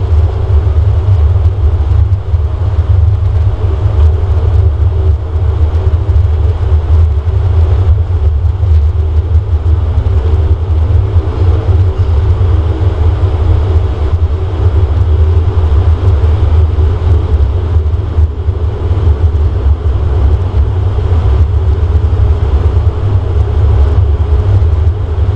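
Bombardier Dash 8 Q400's Pratt & Whitney PW150A turboprop engine and six-bladed propeller running at low power while taxiing, heard inside the cabin: a loud, steady low rumble with a steady hum above it.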